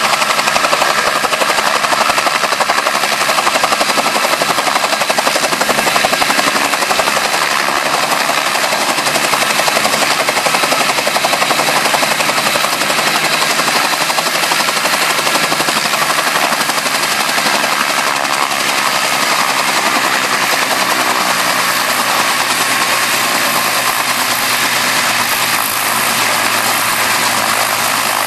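Bell 47G helicopter running on the ground with its main rotor turning: a loud, steady engine-and-rotor noise with a fast, even beat.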